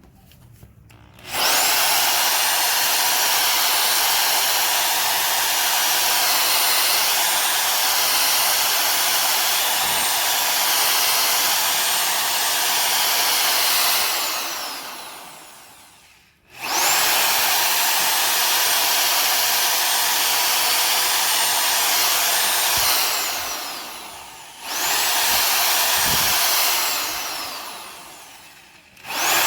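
Electric drill running under load while drilling out a stuck part of a truck leaf spring, with a fresh bit after two have broken. It runs in three long stretches, each trailing off as the motor spins down, and starts up again at the very end.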